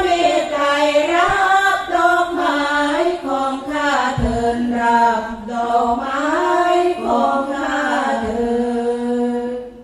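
Sarabhanya, the Isan Buddhist verse chant, sung by a female voice with long held notes that glide up and down; the phrase ends abruptly near the end.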